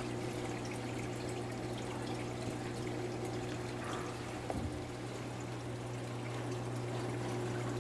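Steady low electrical hum with water trickling underneath, a constant room background; a faint knock about halfway through.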